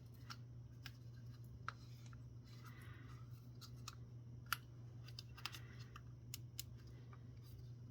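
Faint, irregular clicks and light scraping of the plastic housing of a pan-tilt network camera being handled and pried at, which will not split apart. Under them runs a steady low hum.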